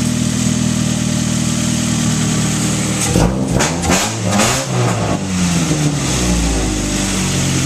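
2002 Ford Focus ZX3's 2.0-litre Zetec four-cylinder running on a newly fitted 4-2-1 exhaust header: steady idle, then a few quick revs up and down in the middle, settling back to a steady idle near the end.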